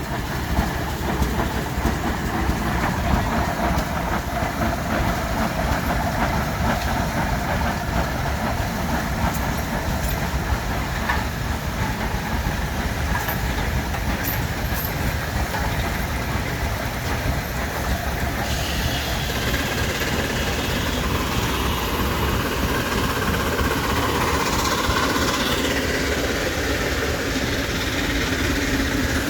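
Old steam engines and tractors running steadily together, a continuous mechanical din.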